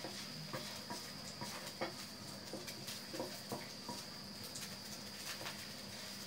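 Ginger slices frying in hot oil in a pan, a steady sizzle with irregular small pops as the ginger browns, and the scrape and tap of a wooden spatula stirring them.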